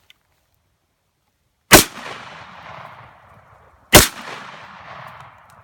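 Two gunshots about two seconds apart, each sharp crack trailing off over about a second and a half.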